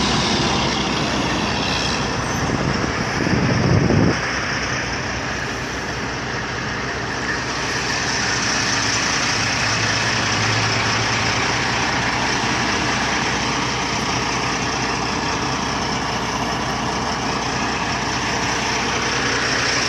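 Diesel tractor-trailer semi-trucks passing close by, engines running and tyres rolling on the road in a steady rush of traffic noise. A louder low rush builds about three seconds in and cuts off suddenly about a second later.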